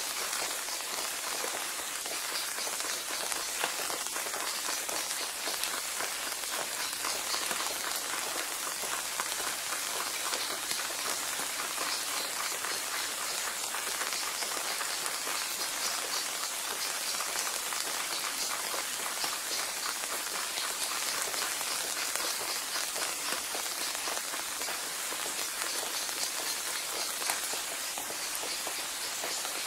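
Steady rain falling on a surface, an even hiss with a dense, fine crackle of drops, serving as the audible bed of a silent subliminal track.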